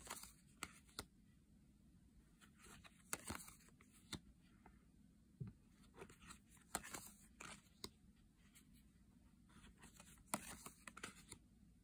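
Faint handling of laminated tarot cards: quick card-on-card slides and small clicks as cards are flipped and moved by hand, a scattered run of short snaps with near silence between.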